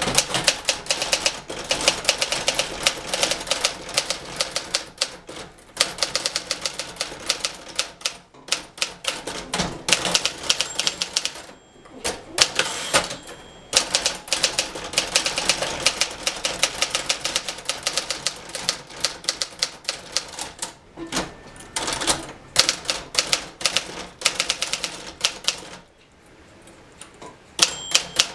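1958 Remington Letter-Riter portable manual typewriter being typed on at a steady touch-typing pace: rapid runs of key and typebar clacks with brief pauses now and then. A short ringing tone sounds twice, about midway and near the end.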